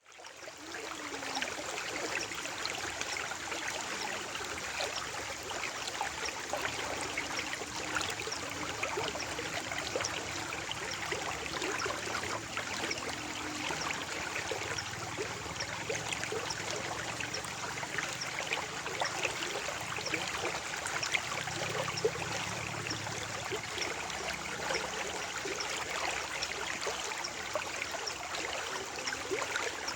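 Stream of water flowing steadily, with many small splashes and drips over a constant rush; it fades in at the start.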